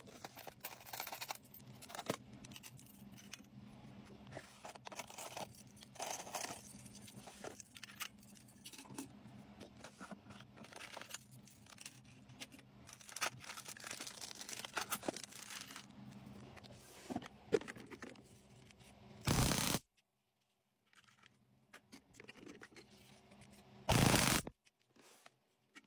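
Small metal and plastic keychains clinking and rattling as they are picked up and set down. This is followed by two short, loud crackling bursts, about 19 and 24 seconds in, from a handheld stun gun being fired.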